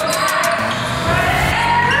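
A basketball bouncing on a hardwood gym floor during play, with music underneath.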